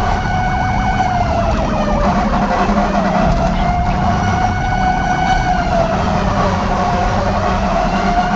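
A siren wailing, its pitch slowly sinking and rising again twice, over a steady low rumble.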